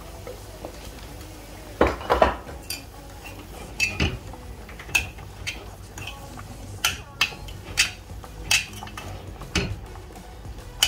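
Metal spoon stirring sautéed spinach in a stainless steel pot, clinking against the pot's sides again and again. A louder clatter of metal comes about two seconds in.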